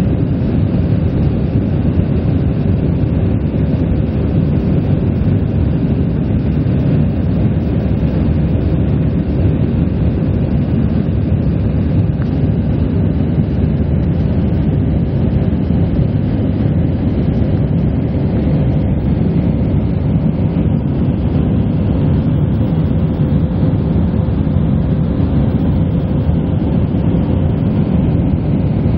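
Steady, loud cabin noise of an Airbus A319 in flight, heard from inside the passenger cabin: the low rumble of its jet engines and the rushing airflow, with a faint steady hum.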